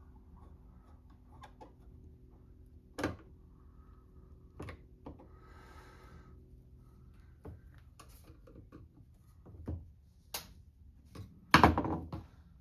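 Small metal carburetor parts and hand tools being handled and set down on a workbench during reassembly: scattered clicks and knocks, with the loudest clatter near the end.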